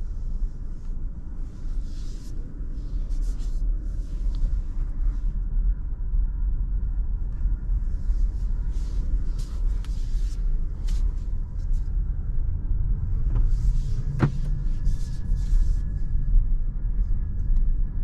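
Kia EV6 electric car heard from inside the cabin while driving slowly: a steady low rumble of tyres and road, with short hissing bursts every second or two. A sharp click about fourteen seconds in, followed by a faint steady tone.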